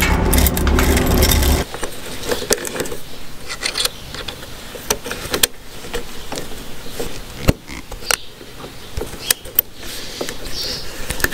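Grain dryer running with a steady hum that cuts off abruptly after about a second and a half, followed by scattered metallic clinks and knocks of hand tools and roller chain as a new drive chain is fitted to a combine header.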